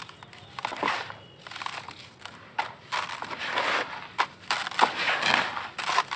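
Hands crushing dusty charcoal balls into powder: irregular crunching and crackling, with gritty crumbs and powder sifting down through the fingers. The crunching grows denser and louder about halfway through.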